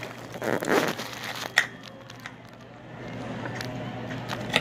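Handling noise at a table: faint rustling and crinkling, with two sharp clicks, one about a second and a half in and one near the end.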